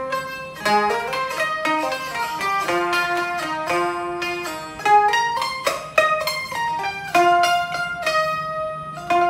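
Suzuki Kohaku CHK-1 taishogoto (a keyed fenghuangqin zither) playing a quick melody of single plucked notes, heard through a portable speaker, with a new note struck just at the end.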